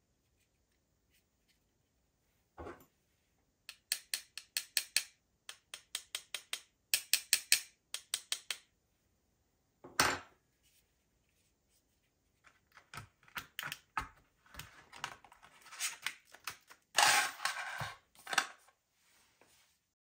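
Hands handling a pair of DDR4 RAM modules in a clear plastic clamshell tray: a run of quick clicks and taps, a sharp knock about halfway through, then a stretch of crinkling and snapping plastic as the modules are set back into the tray.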